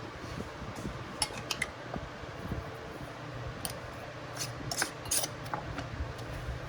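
Lid being fitted and screwed onto a filled glass pickling jar: a series of sharp clicks and clinks, busiest about four to five seconds in, over a steady low hum.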